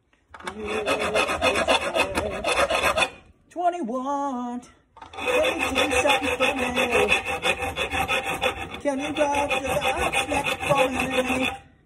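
Round chainsaw file rasping back and forth through a metal knife blank clamped in a bench vise, with a steady ringing tone under the rasp. It comes in two long runs of fast strokes, broken by a short pause about three seconds in.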